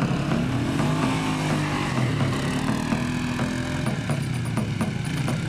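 Quad bike (ATV) engine accelerating. Its pitch climbs over the first second, then holds fairly steady and eases slightly after the middle.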